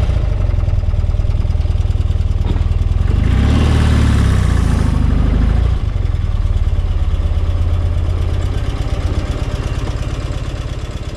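1979 BMW R100RT's air-cooled flat-twin boxer engine running after a bottom-end rebuild. It is blipped once about three seconds in, the revs rising and falling back over a couple of seconds, then it settles to idle and grows fainter toward the end.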